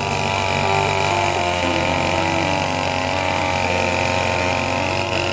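Backpack brush cutter engine running steadily at working speed while cutting grass, its pitch dipping slightly about a second and a half in as the load changes.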